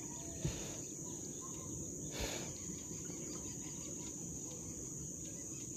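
Crickets keeping up a steady high trill, over a low rumble. Two soft knocks come about half a second and about two seconds in.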